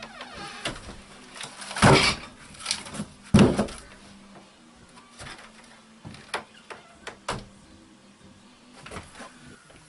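A series of knocks and clunks from things being handled, the two loudest about 2 and 3.5 seconds in, followed by lighter clicks, over a faint steady hum.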